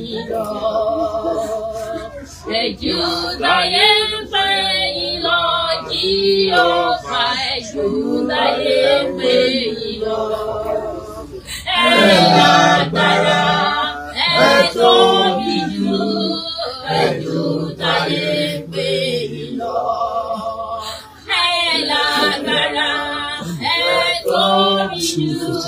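Women's voices singing a worship song without instruments, with long, wavering notes and brief pauses between phrases.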